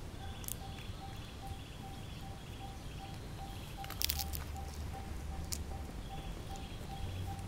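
Outdoor ambience of chirping insects: an even pulsing chirp about four to five times a second under a higher buzzing trill that comes in short repeating groups. A few sharp clicks about four seconds in, over a low wind rumble.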